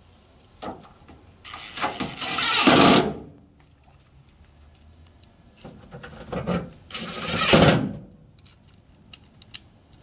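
A power driver running screws into the tailgate's inner cover, in two runs of about one to two seconds each, each building up and cutting off abruptly as the screw seats. Light handling clicks fall between the runs.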